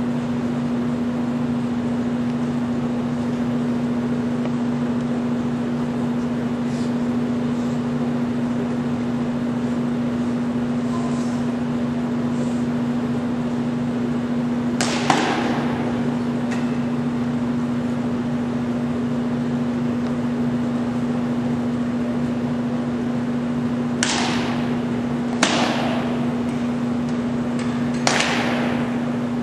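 A steady low hum throughout, with a few sharp echoing knocks of drill rifles and boots striking a hard hall floor: one about halfway through and three close together near the end.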